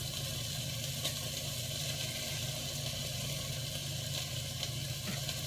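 Chicken sizzling in a frying pan, a steady hiss with a few faint ticks, over a steady low hum.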